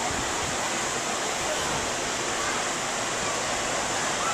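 Steady rushing noise with faint, distant voices of people at a crowded swimming pool.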